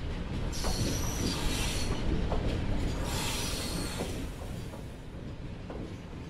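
Train rolling on rails: a steady low rumble with occasional clicks, and two high-pitched stretches of squeal-like noise, one about a second in and one about three seconds in, easing off slightly toward the end.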